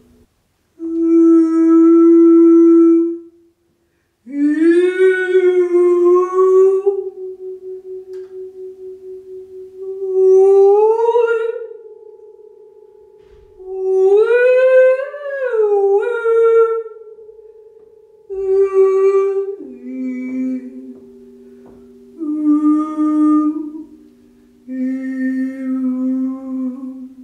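A woman sings a series of long hummed notes, some held and some gliding up and down, straight into a hanging gong. The gong takes up the pitches and keeps ringing softly after each note in a wavering hum: its own sound is being set going by the voice.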